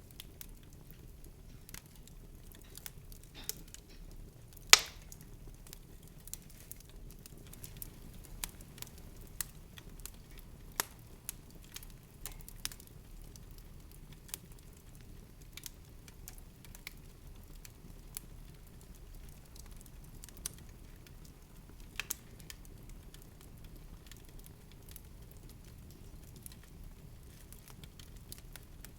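Scattered soft crackles and pops over a steady low rumble, with one louder snap about five seconds in.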